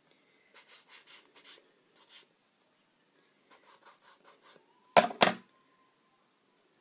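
Paper card edges rubbed against a handheld ink pad in quick scratchy strokes, inking away the white edges, in two runs. About five seconds in, two sharp knocks from the plastic ink pad case, the loudest sound here.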